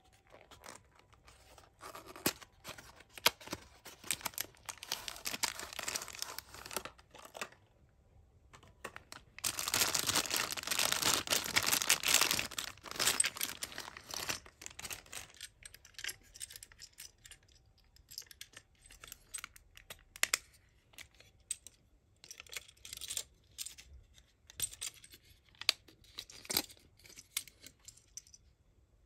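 A cardboard toy box being handled and opened, then the clear plastic bag around a Tomica die-cast toy truck crinkling and tearing loudly for about five seconds near the middle. After that come scattered small clicks and taps as the metal-and-plastic toy is handled.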